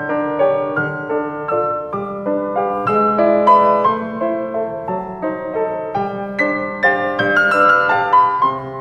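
Piano music: a melody of separate struck notes over held low notes at a steady, gentle pace.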